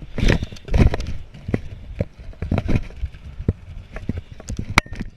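Stunt scooter clattering on skatepark concrete: a run of sharp knocks and clacks from wheels and deck, the heaviest two in the first second, then lighter irregular clicks.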